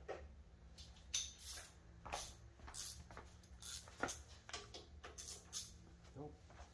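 Metal hand tools clinking and tapping: wrenches being tried one size after another on a brake line fitting, with a string of short knocks, the sharpest about four seconds in.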